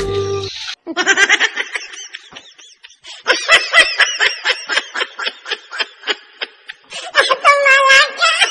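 Person laughing hard in quick, high-pitched bursts, with a longer drawn-out laugh near the end. A snatch of music cuts off about half a second in, before the laughter starts.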